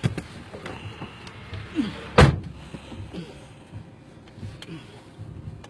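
A car door bangs once, loudly, about two seconds in, with a few faint clicks around it.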